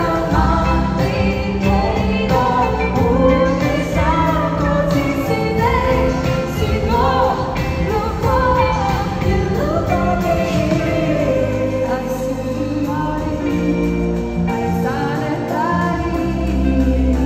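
Live pop concert music in an arena, heard from the audience stands: a singer over band accompaniment with sustained bass notes.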